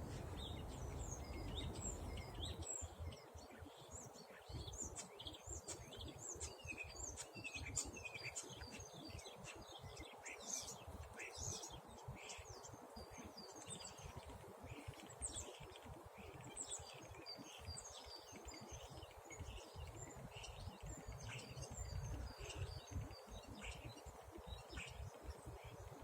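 Many small songbirds chirping and twittering continuously, a dense chorus of short, high chirps, over a low steady background rumble.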